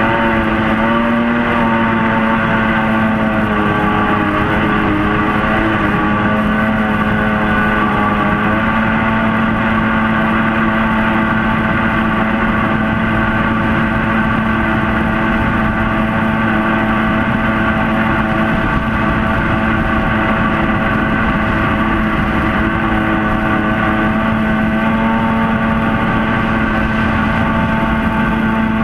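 Mini jet boat's engine running hard under way, a steady high drone whose pitch wavers a little over the first several seconds and then holds steady.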